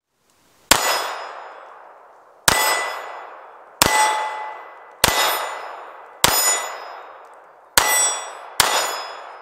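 Seven shots from a Seecamp LWS32 .32 ACP pocket pistol, unevenly paced one to two seconds apart, each met at once by the clang of a steel plate target being hit. Each hit leaves a high metallic ring that fades over a second or more.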